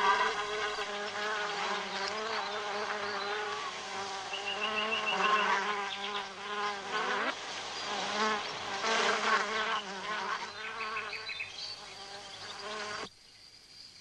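Honeybees buzzing in numbers at their hive, a dense hum of many wingbeats whose pitch wavers as they fly in and out. The buzzing cuts off abruptly about a second before the end.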